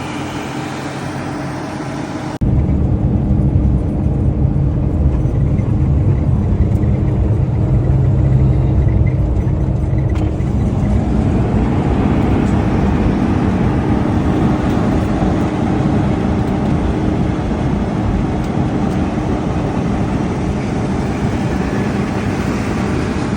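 Vehicle engine and road noise running steadily as a low rumble. About two seconds in, it jumps abruptly much louder and closer, as at a cut in the footage.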